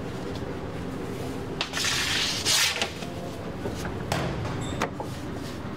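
A long wooden bread peel rubbing and scraping across a floured marble counter in a loud double stroke about two seconds in, with a few light wooden knocks, over a steady kitchen hum.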